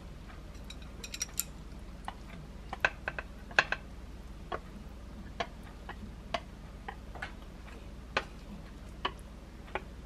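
Chopsticks tapping and clicking against a stainless-steel tray and a glass bowl while food is scraped off the tray: scattered, irregular light clicks over a low steady hum.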